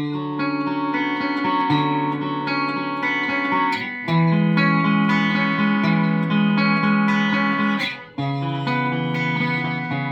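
Samick Greg Bennett MB-1 electric guitar through a Marshall DSL5CR amp on a clean tone, playing ringing chords. New chords are struck about four and eight seconds in, with a short gap before the second change.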